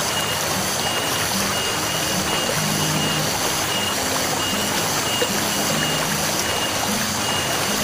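Shallow stream water flowing steadily, with a regular high-pitched pulsing beep and a low shifting hum in the background.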